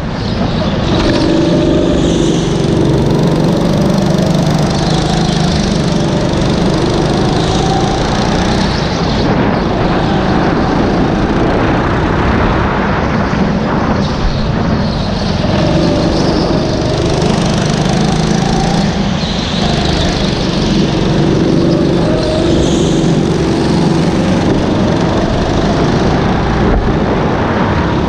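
Rental go-kart's small engine running hard, heard close from the driver's seat, its revs rising and falling several times as it drives through the corners.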